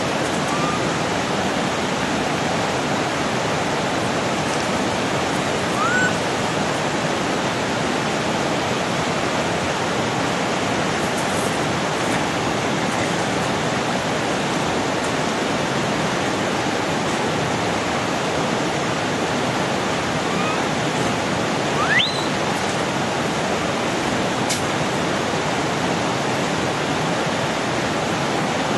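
Steady rushing of flowing water, with a few brief, high chirps that rise quickly in pitch, the clearest about a third of the way in and again near the end.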